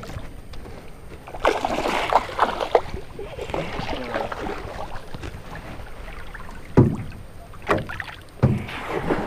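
A burst of water splashing beside a small aluminum jon boat, followed by several sharp knocks against the boat's metal hull as it is moved about in.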